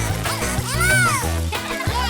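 Upbeat background music with a steady bass beat, with a sweeping tone that rises and then falls about a second in.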